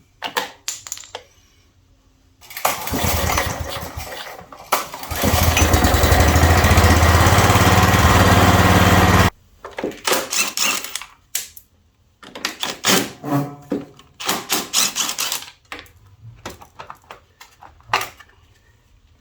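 Petrol lawnmower engine pull-started: a cranking pull, then the engine catches and runs for about four seconds before cutting out suddenly, a short run that the owner puts down to rubbish in the carburettor. Clicks and knocks of handling the mower follow.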